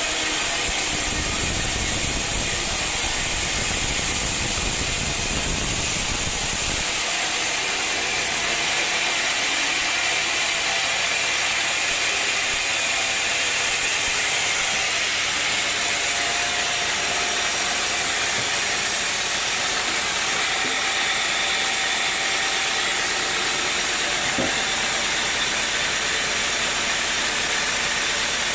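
Machinery running steadily, a dense mechanical noise with a strong hiss. A deep rumble under it stops about seven seconds in.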